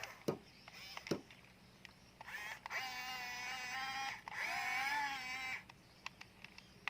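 Huina 1550 RC excavator's small electric motors whining as the grabber arm moves, in two stretches of about two seconds and one second, the second rising then falling slightly in pitch. A few sharp plastic clicks come before it in the first second or so.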